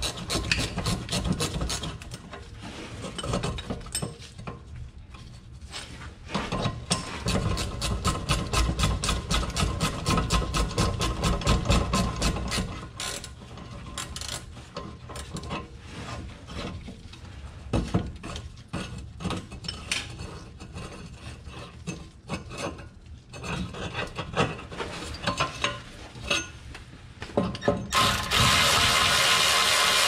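Hand ratchet wrench clicking in quick runs, with short pauses, as the muffler's bolts are worked loose. Near the end a steady loud hiss starts.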